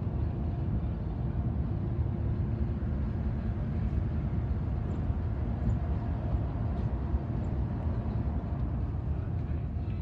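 Steady low rumble of road and engine noise from a moving car, heard from inside it.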